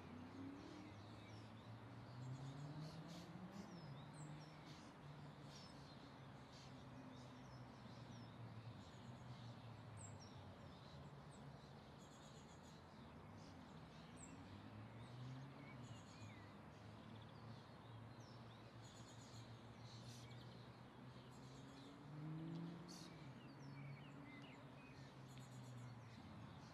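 Faint outdoor ambience of a city garden: scattered birds chirping over a low hum of distant traffic, with the engine note rising and falling now and then.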